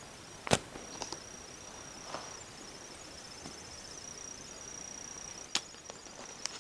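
A few sharp clicks and taps from a small cardboard caramel box being handled, the loudest about half a second in and another near the end as a finger starts prying the box's end flap open. A faint steady high whine runs underneath.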